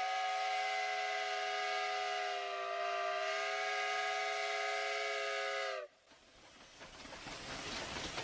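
Steam whistle of Sumpter Valley Railway locomotive No. 19 blowing one long, steady blast of several notes at once, cutting off suddenly about six seconds in. After it, the rumbling clatter of the train and its freight cars rolling past grows louder.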